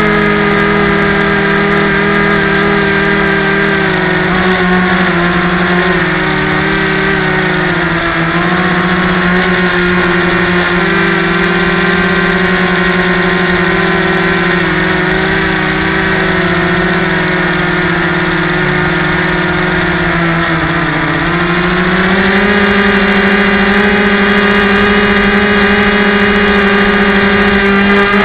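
Yellow Bee RC airplane's small electric motor and propeller whining steadily in flight, picked up close by a camera taped to the plane's belly. The pitch sags slightly a couple of times and steps up to a higher, steadier note about three-quarters of the way through as the motor speeds up.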